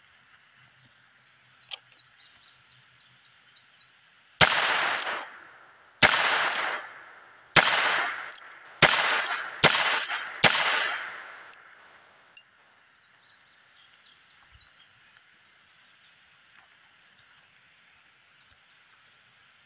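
Single-action revolver firing six shots, the first three about a second and a half apart and the last three quicker, each followed by a fading echo. Birds chirp faintly between and after the shots.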